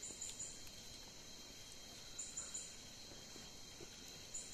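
Night insects calling: a steady high trill with short high chirps in groups of three or four about every two seconds, all faint.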